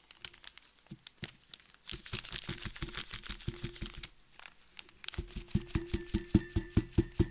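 Crinkling of a pouch of instant chicory coffee substitute being handled and worked open, then a quick run of sharp clicks, about six a second, growing louder toward the end.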